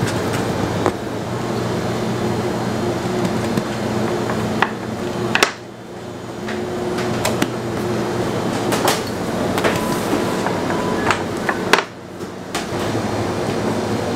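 Bakery workroom ambience: a steady machine hum with scattered light knocks and clicks as dough is handled on metal baking trays. The sound breaks off abruptly twice.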